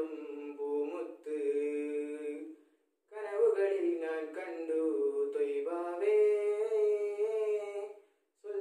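A teenage boy singing a Malayalam Islamic devotional song unaccompanied, in long held phrases with short breath pauses about a third of the way in and near the end.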